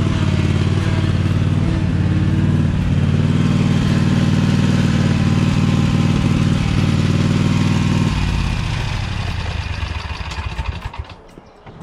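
Engine of a Scag stand-on mower carrying a mulch bin, running steadily close by. It is throttled down about eight seconds in and fades out near the end.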